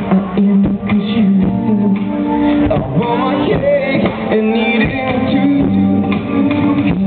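Live acoustic rock band playing: acoustic guitar with upright double bass and drums, with a voice singing over it.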